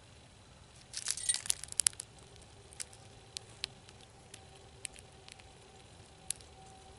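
A gray squirrel foraging in a tray of birdseed: a quick flurry of clicking and rattling seeds about a second in, then scattered single clicks as it picks at and chews the seeds.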